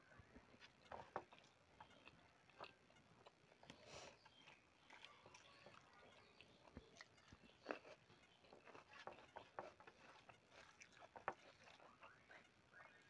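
Quiet eating sounds: chewing and soft scattered clicks and smacks as rice and chicken curry are eaten by hand, with a few sharper clicks about a second in, near eight seconds and a little past eleven seconds.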